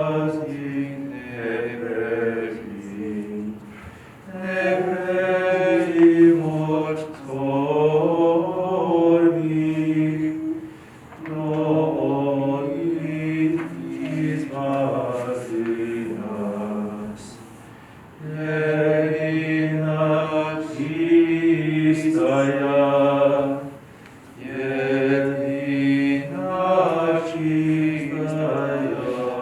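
Unaccompanied Byzantine liturgical chant: voices singing a hymn in long phrases of several seconds, with short breaks between phrases.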